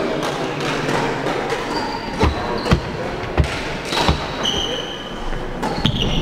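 Badminton rally on a wooden court floor: four sharp hits and thuds from about two seconds in, racket strikes on the shuttlecock and footfalls, with brief high-pitched shoe squeaks after them and near the end.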